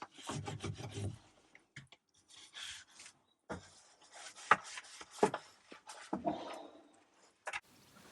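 Brush scrubbing lime wash onto the inside walls of a chicken coop in short, irregular rubbing strokes with brief pauses, and a couple of sharper knocks about halfway through.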